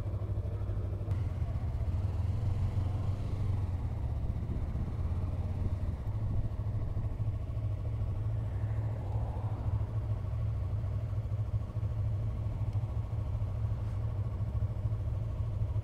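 Yamaha R3 sport bike's parallel-twin engine idling while stopped, heard as a steady low rumble.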